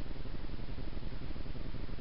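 Steady hiss with a low rumble underneath from a surveillance camera's microphone in an empty attic, unchanging throughout with no knocks, taps or other distinct sounds.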